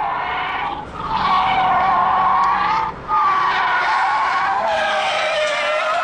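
Car tyres squealing as the car drifts sideways at speed, in long, high-pitched screeches broken by two brief gaps.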